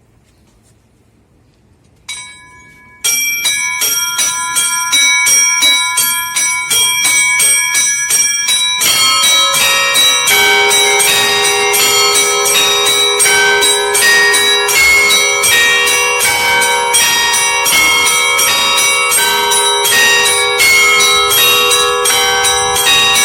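Russian Orthodox church bells ringing: a single stroke about two seconds in, then small high bells struck in a quick repeated rhythm, with more bells and deeper, heavier bells joining at about nine to ten seconds in and ringing together in a dense, continuous peal.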